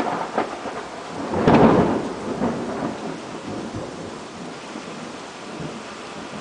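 Thunder over steady rain: a crackle, then a loud clap about a second and a half in that rolls away into a fading rumble.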